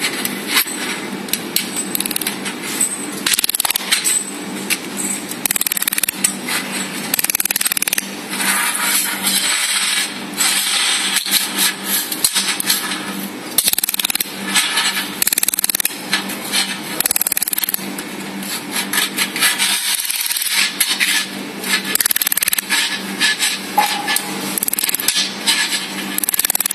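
Thin sheet-metal channel-letter strip being handled and tack-welded on a laser welding machine: irregular metallic clicks and scrapes over the machine's steady low hum.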